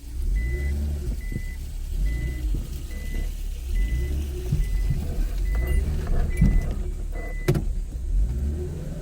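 Mitsubishi Pajero Mini engine running with a steady low rumble, while a short high beep repeats about every 0.7 s. The beeping stops with a sharp knock about seven and a half seconds in, and the engine pitch starts to rise near the end.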